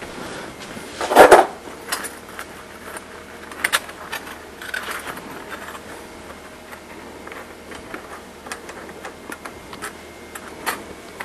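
Small metal parts clinking and knocking against a steel bench vise as they are handled and set in its jaws. There is one louder clatter about a second in, then scattered light clicks and taps.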